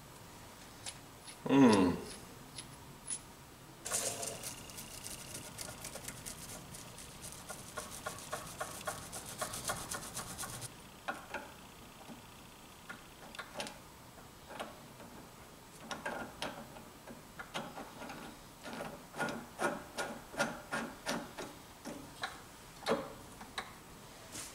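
Metal hand tool clicking and scraping against a Motobecane AV7 moped engine's flywheel as the flywheel puller is fitted. A brief falling-pitch sound comes about a second and a half in. A fast run of fine clicks follows about four seconds in and lasts some six seconds, and separate ticks at about two a second come in the last third.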